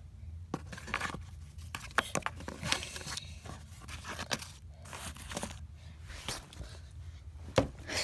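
Irregular scraping and rubbing with scattered short clicks as a hand handles a marker and the camera moves against fabric, with one sharper knock near the end.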